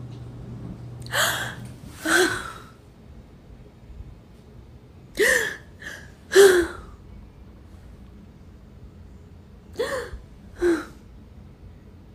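A woman's exaggerated fake sobbing: three pairs of short gasping sobs, each pair about four seconds after the last.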